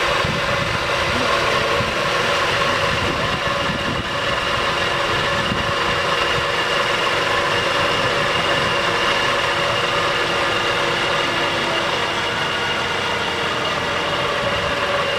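Suzuki XL7's 3.6-litre V6 idling steadily, with a thin high whine held over it.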